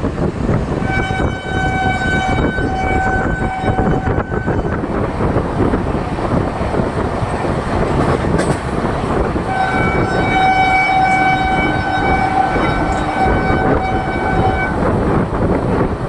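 Two long, steady blasts of a train horn, the first about a second in and the second from about nine and a half seconds to near fifteen, over the constant rush of wind and wheel-on-rail noise through the open door of a moving passenger coach.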